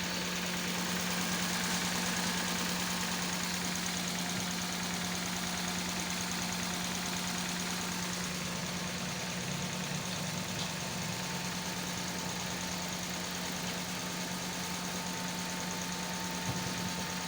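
Toyota Corolla engine idling steadily with one ignition coil pulled, so it runs with a cylinder misfiring.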